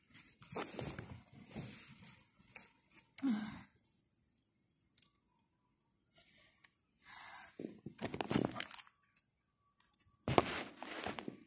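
An adhesive bandage and its wrapper being torn and peeled in short rustling, tearing bursts with pauses between them. A louder rustle comes near the end.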